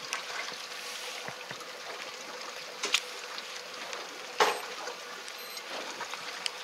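Steady wash of sea and wind noise on an open boat, with two short sharp noises standing out about three and four and a half seconds in.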